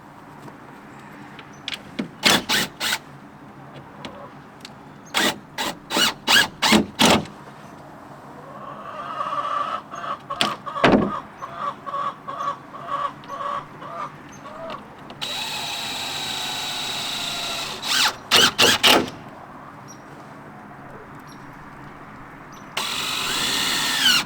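Sharp knocks in quick runs of four to six strikes, like hammering on a wooden coop lid, with a power drill running steadily for a few seconds in the middle and again near the end.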